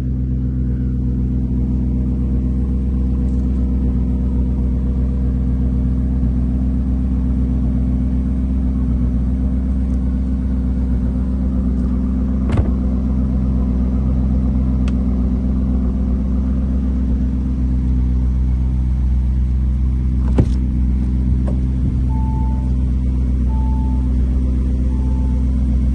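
Lamborghini Urus S twin-turbo V8 idling steadily with a low, even hum. There are two sharp clicks partway through, and from about 22 seconds in a short chime beeps over and over, about once a second, the car's warning for an open door.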